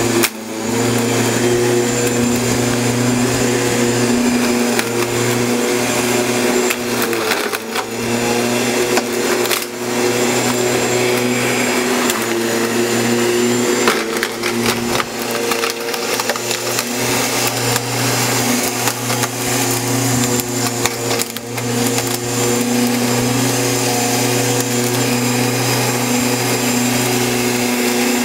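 Bosch Rotak 32 electric rotary lawnmower running steadily while cutting grass and weeds, its motor and blade giving a constant whining hum, with a few brief dips in level.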